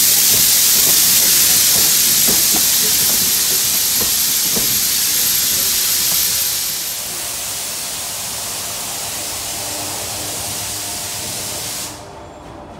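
Jeddo Coal Co. 85 steam locomotive venting steam with a loud, steady hiss as the train moves away. It grows quieter about six and a half seconds in and cuts off suddenly near the end.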